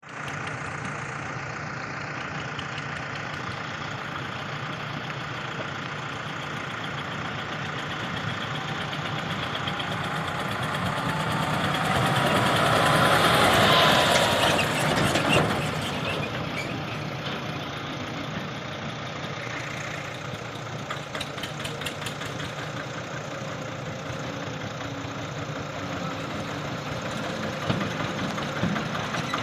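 Diesel engines of heavy machinery running steadily. About halfway through, one revs up to a peak and then drops back to a steady run.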